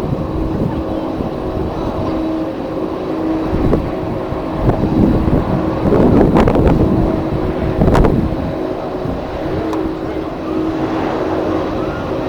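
Strong wind buffeting the microphone in uneven gusts, loudest a little past the middle, over a steady faint droning tone.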